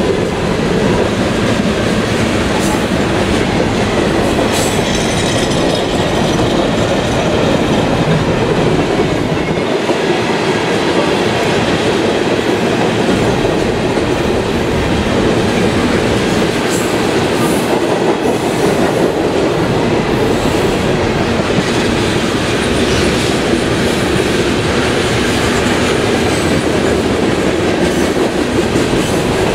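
Freight cars of a mixed freight train (tank cars, hoppers and boxcars) rolling past close by: a steady, loud rumble of steel wheels on rail with clattering over the rail joints.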